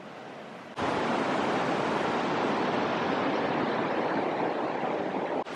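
Steady rushing of a fast-flowing, rain-swollen river. It starts abruptly and loud about a second in after fainter rushing, and cuts off just before the end.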